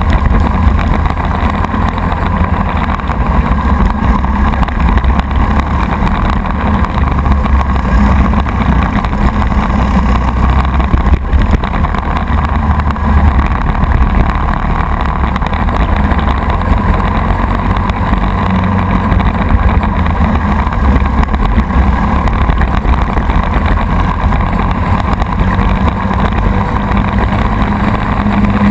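Briggs & Stratton Animal single-cylinder kart engine running steadily at racing speed, heard loud and close from on board the kart.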